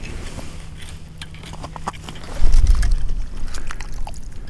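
Ice cleats crunching and scraping on snow-covered ice as feet shift in place, with scattered sharp crunches. A loud low rumble comes in a little over two seconds in.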